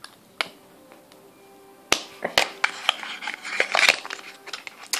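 Hands handling plastic lipstick tubes: a few sharp clicks, then a quick run of clicks and rustling about two to four and a half seconds in.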